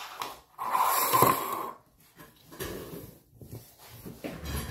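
Slime squeezed and pressed by hand, giving wet squelches and air pops in short bursts, the loudest about a second in.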